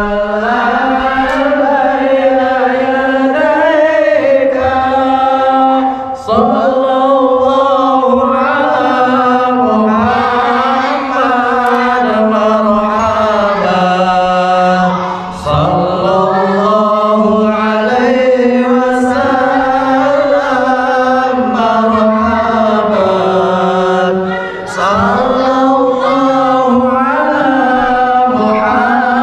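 Male voices chanting Islamic shalawat in unison through a microphone and loudspeaker, a slow melodic line of long, ornamented held notes. There is a short breath pause about every nine seconds.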